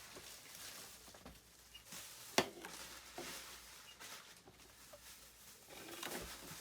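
Plastic toy pieces being handled, with faint small knocks and rustles and one sharp click about two and a half seconds in.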